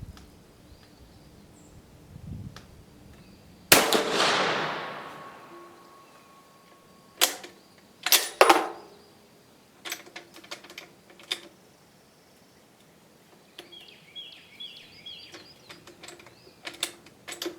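A single rifle shot about four seconds in, its report echoing away over about two seconds, followed by metallic clicks and clacks of the Dutch Beaumont's bolt being worked.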